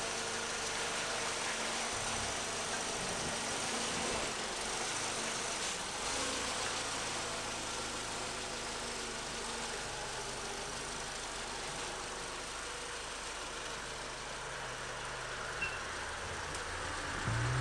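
Car engine idling steadily after a fresh oil change, with no tick to be heard.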